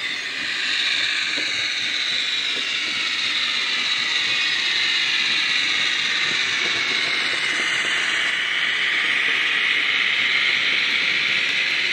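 Simulated wheel flange squeal from a Loksound 5 DCC sound decoder in a Hornby Sentinel shunter model: a steady, high-pitched, wavering screech of flanges grinding on curved track, louder from about a second in.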